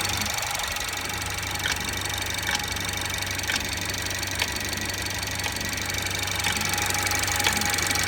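BMW F30's B48 turbocharged four-cylinder engine idling after a cold start, with a sharp, irregular ticking about once a second over the steady hum: the strange cold-engine tick the owner is recording.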